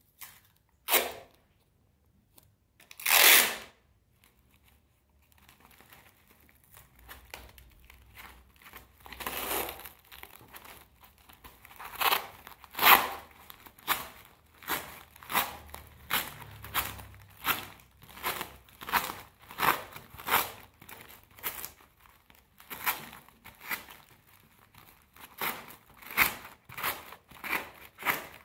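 Masking tape being pulled off the roll in ripping strips and pressed around an aluminium-foil-covered form, the foil crinkling under the hands. There are two separate rips in the first few seconds, then, after a quieter stretch, a steady run of short rips and crinkles, one or two a second.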